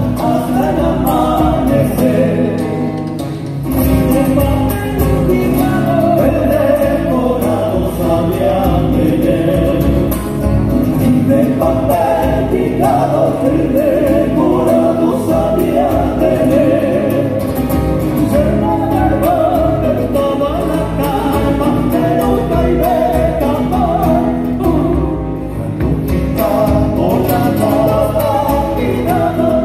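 An Argentine folk group singing together in harmony over three strummed acoustic guitars and a bombo legüero drum, played live through a PA system.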